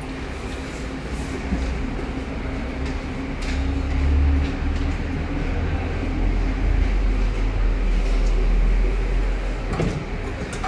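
A steady low machine rumble with a constant hum, swelling about four seconds in and again later, with a few faint clicks.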